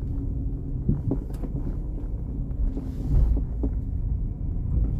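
Road and drivetrain rumble inside a moving Chevrolet Onix turbo. A few light knocks and rattles come through, with a heavier low bump about three seconds in.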